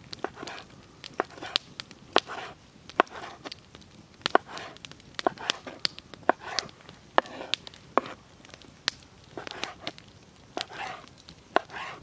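A knife cutting meat into cubes on a wooden cutting board: irregular sharp knocks as the blade hits the board, about one or two a second, with softer slicing sounds between them.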